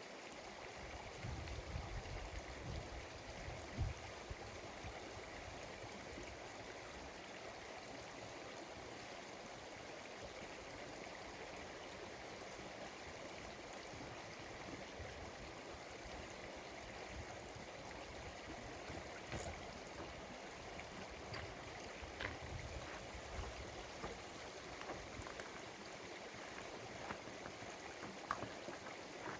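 Stream of water flowing steadily, with a few low thumps in the first few seconds and faint clicks later on.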